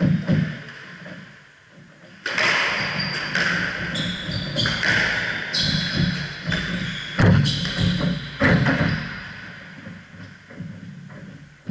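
Squash rally heard live in a reverberant court: the ball knocking against the walls and shoes squeaking on the wooden floor, with some voices. It starts suddenly about two seconds in and fades near the end.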